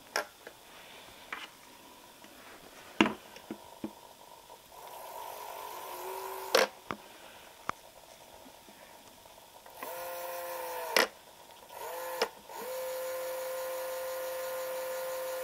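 Solarbotics 30:1 plastic gear motor with a Lego wheel, running with a steady whine in four short runs as it is switched on and off. The last run holds steady for about three seconds. A few sharp knocks come in between, the loudest about three seconds in and about eleven seconds in.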